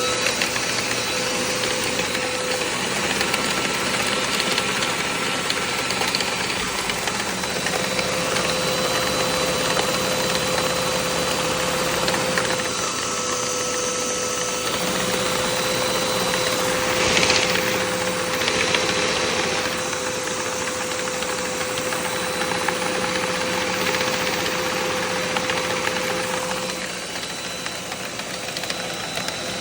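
Lego V8 vacuum engine running steadily, its plastic pistons knocking and clattering in their cylinders (piston slap), over the steady whine of the vacuum cleaner whose suction drives it. The running eases off slightly near the end.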